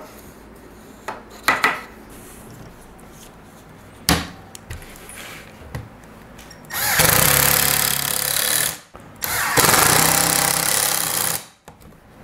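Cordless drill driving pocket-hole screws into a wooden face-frame joint: two runs of about two seconds each, a short pause between them, after a few light knocks of wood and clamp.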